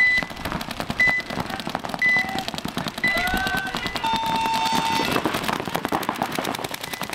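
Paintball game-start sequence: a short electronic beep once a second, four times, then a long buzzer about four seconds in, over the rapid popping of paintball markers firing.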